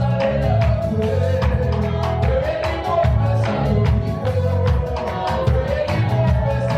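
Live worship band playing an upbeat gospel song with a steady beat, bass and guitar, with singing over it.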